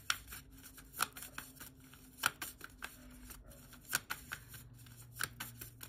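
A deck of tarot cards shuffled by hand, the cards slipping and clicking against each other in irregular light clicks, several a second.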